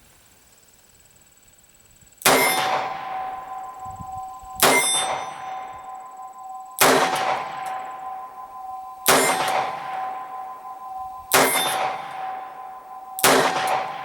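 Six shots from a Colt Detective Special .38 Special revolver, about two seconds apart, each followed by the clang of a distant steel target being hit. The plate keeps ringing on two steady tones between shots.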